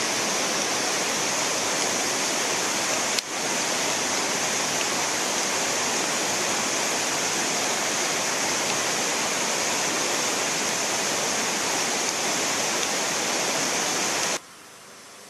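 Flood-swollen muddy water pouring over a dam spillway in a steady, even rush, with a brief click about three seconds in. The rush cuts off abruptly near the end.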